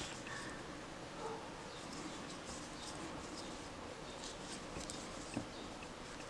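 Faint rustling and scratching of cotton string yarn drawn through stitches by a wooden crochet hook, with scattered small ticks and one soft knock about five seconds in.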